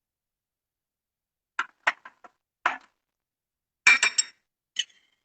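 A spoon clinking against a bowl as ingredients are spooned in: a few separate light taps, then a louder cluster of clinks about four seconds in.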